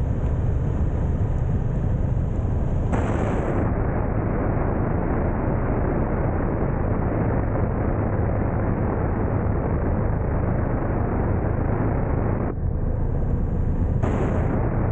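Steady wind rush buffeting the action camera's microphone while riding a Ducati Multistrada at road speed, with the motorcycle engine's steady drone underneath.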